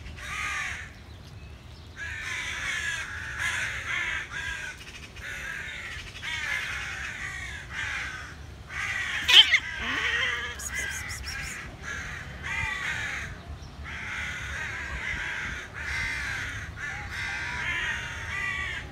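Crows cawing over and over in harsh, overlapping calls, with a single sharp knock about nine seconds in.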